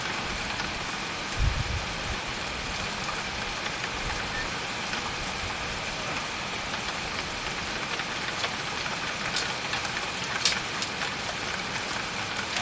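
Steady rain falling, an even hiss, with one dull low thump about a second and a half in and a short sharp tap near the end.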